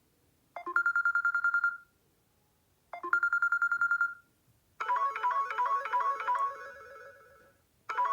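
Samsung Galaxy J7 (2015) phone speaker playing ringtones: two short trilling tones, each a quick run of beeps on one pitch lasting about a second, then from about five seconds in a melodic ringtone of repeated notes that fades and starts over near the end.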